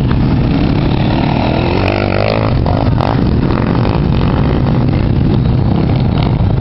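Dirt bike engine revving under load as it climbs a steep dirt hill, the revs rising and falling about two seconds in, over a heavy low rumble throughout.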